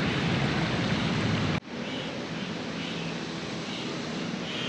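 Steady rush of flowing river water with wind buffeting the microphone, loud with a low rumble at first, then dropping abruptly about one and a half seconds in to a quieter, even rush of water.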